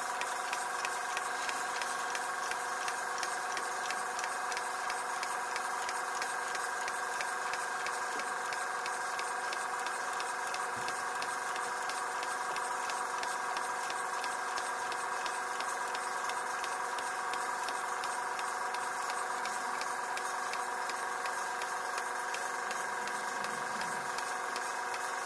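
Stuart S50 model steam engine running on compressed air at low pressure, ticking over steadily with a rapid, even beat of exhaust puffs. No air hisses from its joints: the leaks have been cured.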